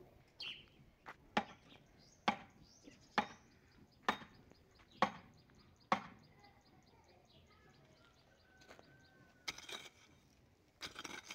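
A hand hoe chopping at a wooden fence post: about eight sharp strikes, roughly one a second, stopping about six seconds in.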